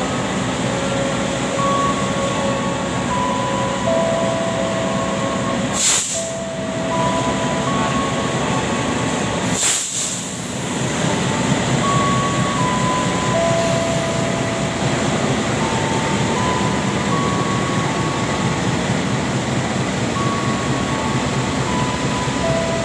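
KAI CC 206 diesel-electric locomotive (GE C20EMP) hauling a long-distance passenger train out of the station: steady engine and rail noise as it pulls past and away. Two short rushes of noise come about six and ten seconds in.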